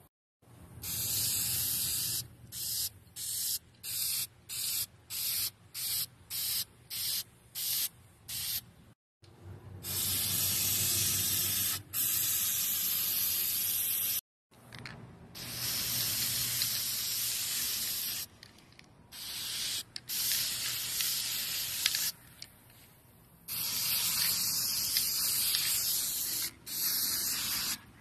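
Aerosol spray-paint can hissing as black paint is sprayed onto a plastic planter: first a quick run of short spurts, about two a second, then longer sprays of a few seconds each that start and stop abruptly.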